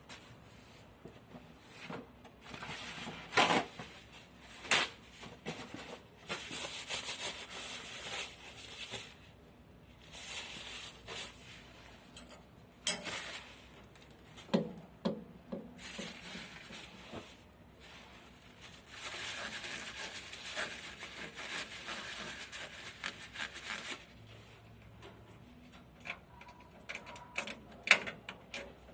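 Scattered clicks, light knocks and rustling from hand work on an oil burner, with two longer stretches of hissy rubbing or scraping.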